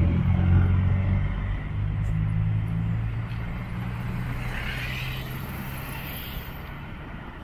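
A motor vehicle's engine hum, loud at first and fading steadily as the vehicle moves away.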